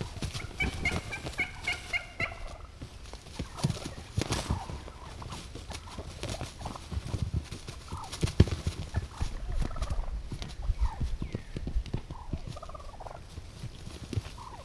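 A wild turkey flogging a decoy: repeated thumps, flapping wings and dry leaves rustling. A quick run of about six high turkey calls comes about a second in, and softer turkey notes are scattered through the rest.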